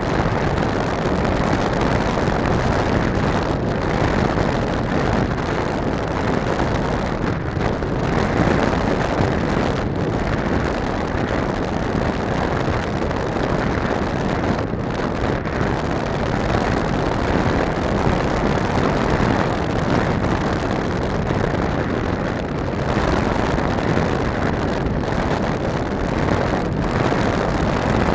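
Steady rush of wind over the microphone of a camera riding on a radio-controlled airplane in flight, mixed with the noise of its electric motor and pusher propeller running.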